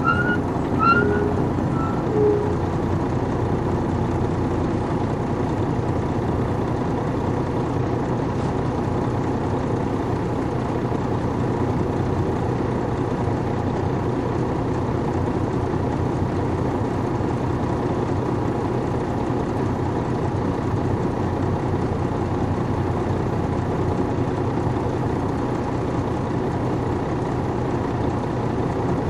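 Detroit Diesel Series 60 diesel engine of a 2002 MCI D4000 coach, heard from on board, running steadily with an even level throughout. A few short high squeaks come in the first couple of seconds.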